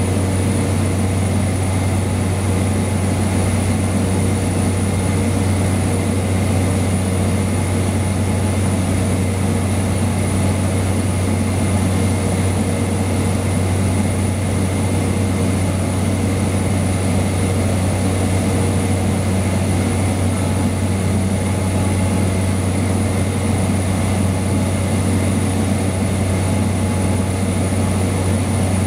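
Cabin noise of a Cessna 208 Caravan in flight: its PT6A turboprop engine and propeller drone steadily, with a deep low hum and a thin high whine over it.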